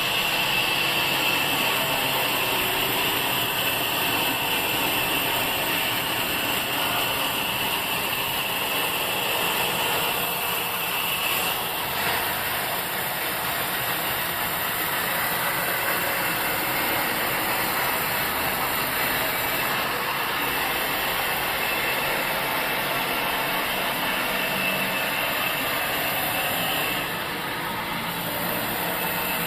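Sawmill machinery running steadily, with a high whine that weakens about twelve seconds in.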